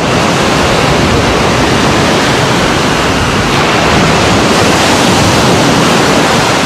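Ocean surf washing onto a sandy beach: a loud, steady rush of small breaking waves.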